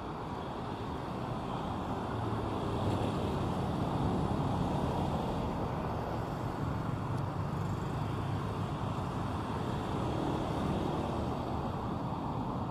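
Steady road traffic noise from passing cars and motorbikes, swelling a little about two seconds in.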